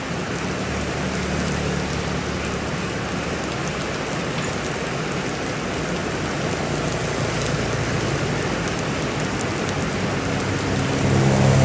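Heavy rain pouring steadily, with a low steady hum underneath that grows louder near the end.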